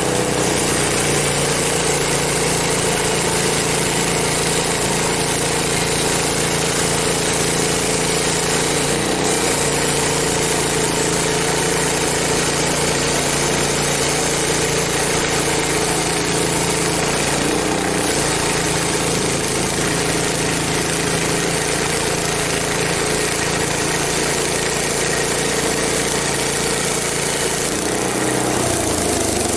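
Frontier OS23 band sawmill's gas engine running steadily, driving the blade through a log on a test cut with a blade the owner thinks is getting dull. The engine note shifts slightly near the end.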